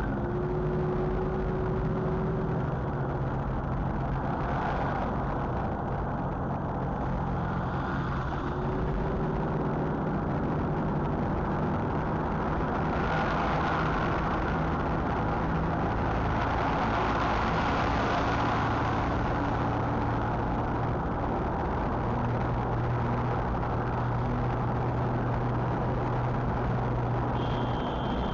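Car engine and road noise heard from inside the cabin while driving in traffic, steady throughout, with the engine note shifting now and then and the noise swelling for a few seconds midway.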